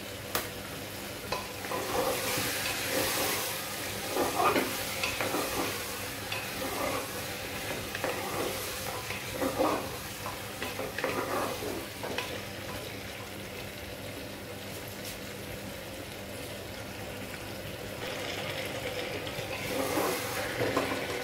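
Mutton liver and ginger-garlic paste frying in an aluminium pressure cooker pot, sizzling steadily while a wooden spatula stirs and scrapes against the pot in irregular spells.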